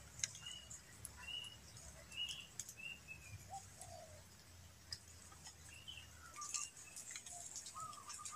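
Birds chirping faintly: a string of short high chirps through the first few seconds, then lower, shorter calls, with scattered light clicks.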